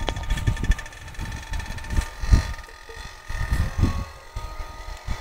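Tomos CTX 80 small two-stroke dirt bike engine running in the distance as it is ridden across a field, a thin steady whine that wavers a little with the throttle. Irregular low buffeting rumbles on the microphone lie over it.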